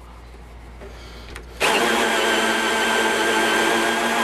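Electric drill spinning a hole saw as it bores the knob hole through the face of a door. After a short pause, the drill starts abruptly about a second and a half in and runs at a steady speed.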